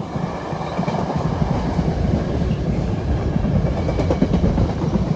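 Empty container flat wagons of a freight train rolling past, wheels clattering over the rails with a steady loud rumble.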